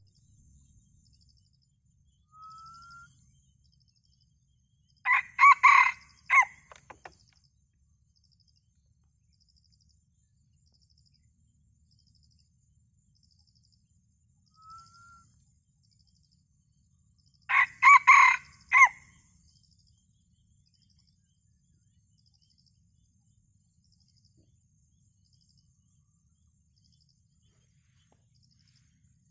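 Red junglefowl rooster crowing twice, about twelve seconds apart, each crow a short, clipped run of a few syllables. This is the crow prized by junglefowl trappers for luring wild birds.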